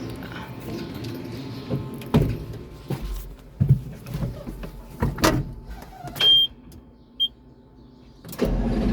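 Knocks, clicks and rattles, two short electronic beeps, then near the end a diesel engine cranks briefly on its newly replaced starter motor, catches and runs steadily: the Volvo L90D wheel loader starting.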